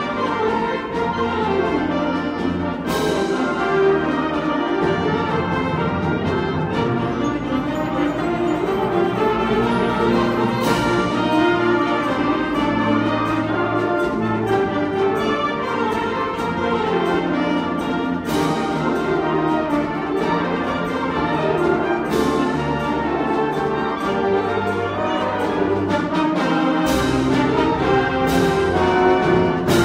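High school concert band playing a piece with the brass to the fore, punctuated by sharp percussion strikes every few seconds.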